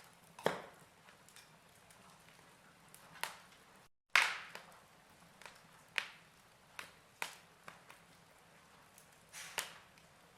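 Fire crackling: a low steady hiss with sharp pops every second or two, the loudest about four seconds in, right after a momentary cut to silence.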